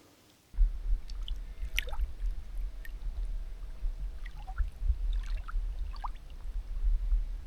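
Wind buffeting the microphone: an uneven low rumble that starts suddenly about half a second in, with a few faint high chirps over it.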